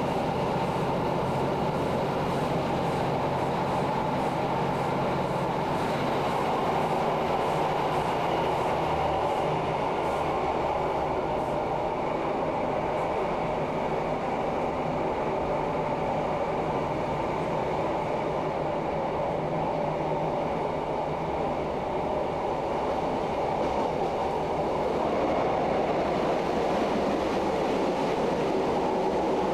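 Steady running noise inside a Class 150 diesel multiple unit travelling at speed: the drone of the underfloor diesel engine and the wheels running on the rails.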